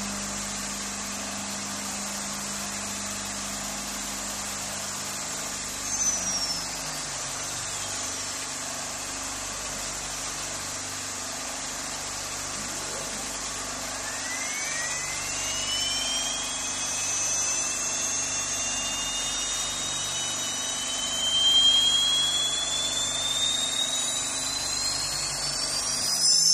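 CNC wood router's spindle and machine running steadily with a noisy hiss while the cutter works the panel. About halfway through, a high whine rises in pitch as the spindle speeds up, holds roughly steady, then climbs sharply near the end.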